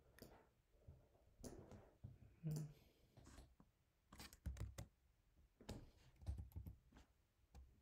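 Near silence with faint, scattered clicks of a computer keyboard and mouse, about a dozen short taps, bunched together around the middle and again later on.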